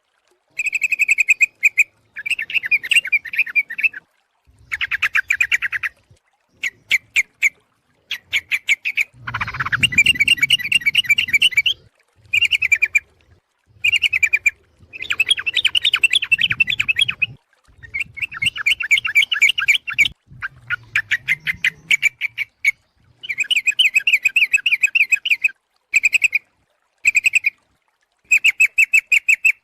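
Yellow-vented bulbul (trucuk) calling in bursts of rapid, bubbly chattering notes, each burst a second or two long, with short silent gaps between them. This is a recorded lure call played to draw the birds in.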